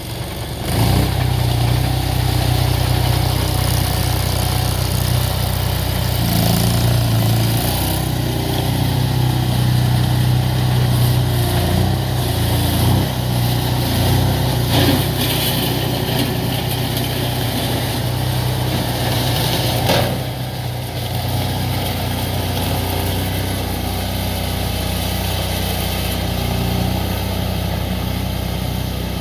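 Rato 740 V-twin gas engine of a stand-on compact track loader running, its speed rising and falling several times. About twenty seconds in it drops back and runs steadier and a little quieter.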